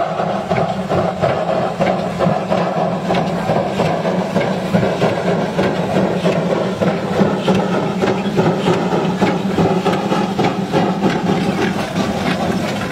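Small steam locomotive running past with a loaded train of sugarcane wagons, its running noise mixed with a steady stream of quick knocks, clanks and rattles from the engine and wagons on the track.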